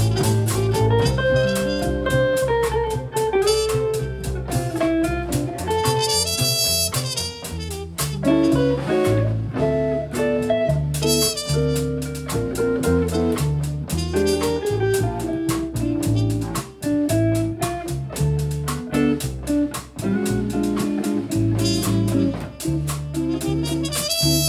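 Live jazz quartet playing: trumpet over archtop electric guitar chords, upright bass and a drum kit with steady cymbal strokes.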